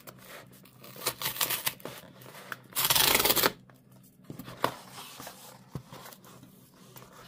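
Cardboard mailer box being opened by hand: a loud rip, about three seconds in, as the tear strip is pulled, amid rustling and scraping of the cardboard.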